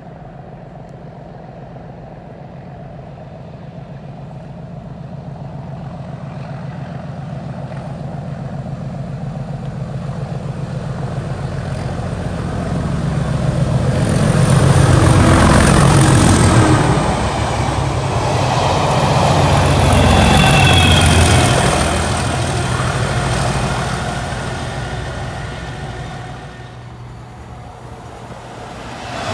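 Diesel locomotive approaching and passing at speed: the engine grows steadily louder, its note drops in pitch as it goes by about sixteen seconds in, and a second drop follows about four seconds later, amid the rumble of wheels on rail; the sound then fades away.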